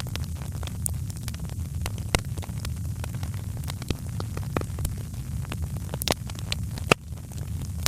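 Wood fire crackling in a fireplace: irregular sharp pops and snaps over a steady low rumble of flame, with one louder pop near the end.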